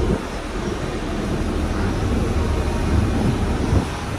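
Heavy machinery running with a steady low rumble, with a few faint knocks over it.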